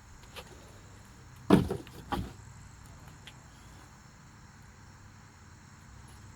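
Two handling thumps about half a second apart, a second and a half in, as the bike's boxed parts are moved and set down; otherwise quiet.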